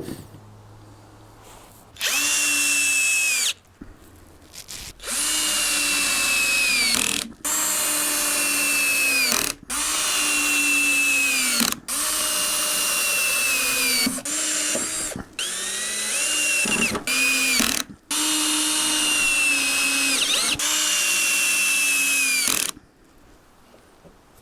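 Power drill driving screws into wooden boards, in about eight runs of a couple of seconds each. The motor's whine drops in pitch as each run ends.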